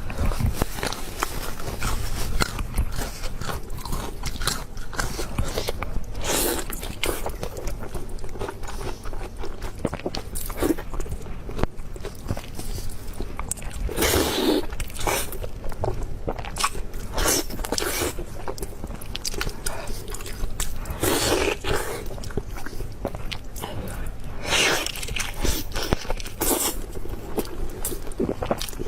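Close-miked mukbang eating sounds: a person biting into and chewing crunchy food, a run of crisp crunches and clicks with louder bites every few seconds.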